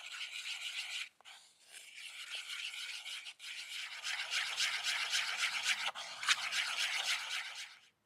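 A thin wooden stick stirring flour and liquid into a batter in a wooden bowl: a fast, scratchy swishing of quick strokes, with brief pauses about one and three seconds in, stopping just before the end.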